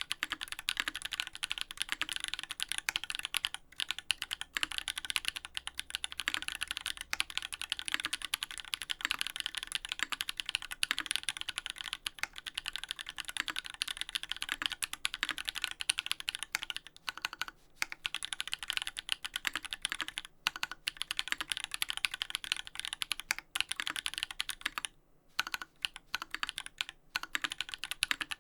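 Fast, continuous typing on a Duck Orion V3 mechanical keyboard with lubed Holy Panda tactile switches on an FR4 plate and GMK keycaps. The keystrokes run together in a dense stream, with a few short pauses in the last third.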